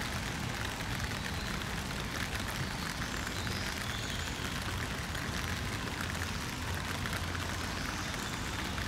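Steady rain falling on pavement: an even hiss dotted with fine drop crackles, over a low steady rumble.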